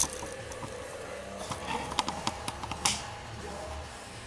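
Sharp handling clicks and light taps: one at the start, then a quick run of them between about a second and a half and three seconds in, the last one loudest, over a low steady hum.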